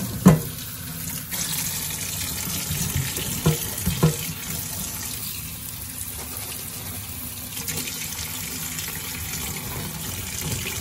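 Tap water running steadily into a stainless steel bowl of sliced banana heart, filling it in a metal sink. A few short knocks sound in the first half.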